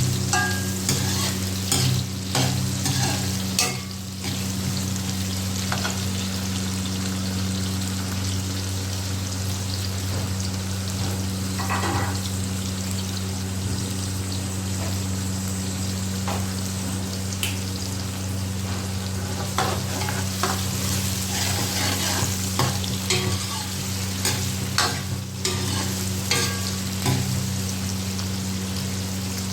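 Chopped onions frying in a pot of hot oil, sizzling steadily, with a scattering of short clicks and scrapes from a spoon stirring them. A steady low hum runs underneath.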